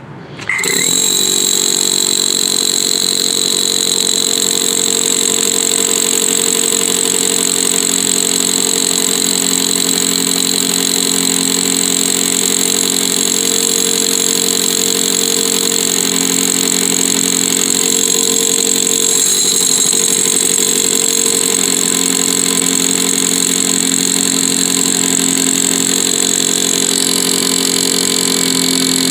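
Milwaukee M18 FUEL 1-3/4" SDS-Max rotary hammer drilling into concrete in hammer drill mode with a 1-1/2 inch masonry bit. It starts about half a second in and runs steadily under load, with a high motor whine over the hammering.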